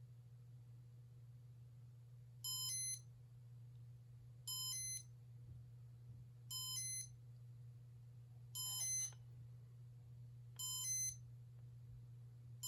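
Casablanca Panama ceiling fan running at speed 1 in Comfort Touch test mode: a steady low motor hum, with a short electronic chirp of beeps repeating about every two seconds.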